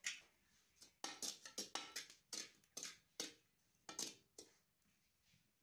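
Metal ladle scraping and stirring sand in an aluminium pot, about a dozen quick strokes that stop about a second before the end. The sand is being heated for dry-roasting peanuts. A single sharp knock comes at the very start.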